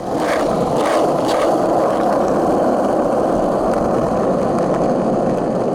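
Skateboard wheels rolling on pavement, a steady rumble.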